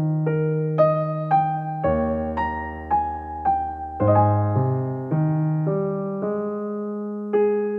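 Background piano music: a gentle melody of single notes struck about twice a second over held low chords.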